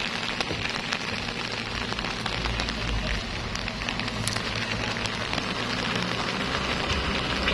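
Mitsubishi L300 diesel pickup's engine pulling up a slick, stony slope, a low hum that grows louder as it draws closer. Over it runs a steady hiss with a dense patter of small ticks.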